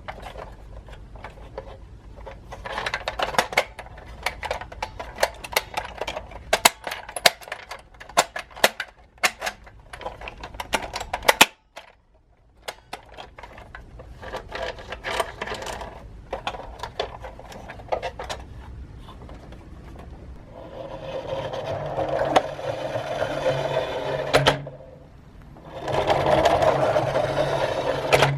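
Small toy cars rolling down a slope, their plastic wheels and bodies clicking and clattering in rapid, irregular ticks. After a brief gap the clatter turns into a steadier whirring rattle with a low hum.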